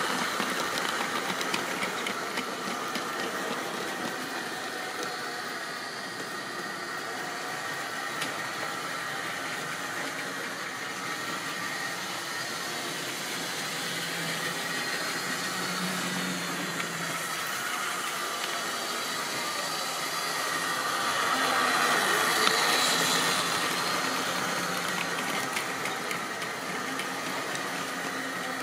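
Tri-ang or Lima model trains running on track: a steady whirring of small electric motors and wheels on rail, with faint clicks. Loudest as a goods train passes close at the start, then fading, and swelling again as another train comes by about 22 seconds in.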